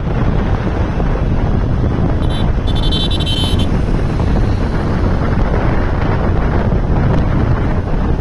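Wind rushing over the microphone of a Bajaj Pulsar 150 at highway speed, about 65–70 km/h, with the motorcycle's single-cylinder engine and road noise running steadily underneath. About two seconds in, a high-pitched horn-like beeping tone sounds for about a second.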